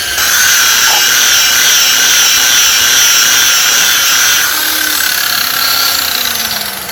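Handheld electric polisher running steadily at speed with a high whine as its pad buffs metal polish into a plastic headlight lens. About four and a half seconds in the whine eases, and near the end its pitch falls as the polisher slows.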